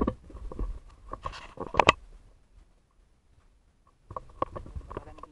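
Clicks, knocks and rustling of a body camera being handled and moved, with a sharp double knock about two seconds in. A short quiet follows, then more small knocks.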